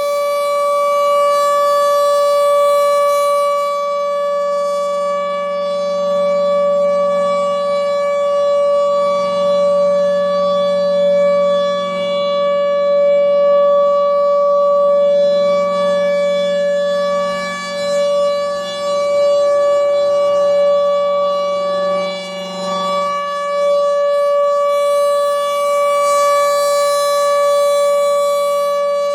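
Federal Signal Thunderbolt 1000 outdoor warning siren sounding its alert signal: a loud, steady, unwavering tone, swelling louder and hissier near the start and again near the end as the rotating siren head sweeps past.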